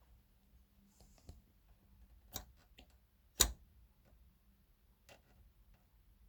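A few separate sharp clicks and knocks from handling, the loudest about halfway through, against a quiet room.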